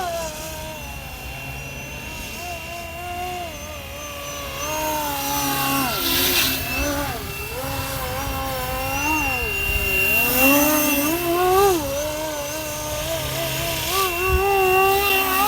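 FlyWing MH-60T Jayhawk electric RC helicopter in flight, its rotor and motor whine rising and falling in pitch again and again as it manoeuvres.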